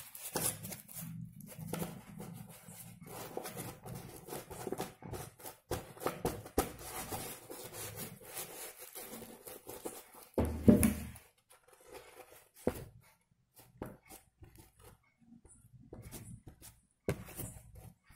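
Dry corn husk strips and a chart-paper cone rustling and crinkling as the husks are handled and glued onto the cone, with one louder bump about ten and a half seconds in. It goes mostly quiet after that, with a few scattered clicks.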